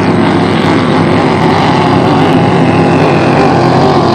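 Racing hydroplane engine running at high speed across the water: a loud, steady drone.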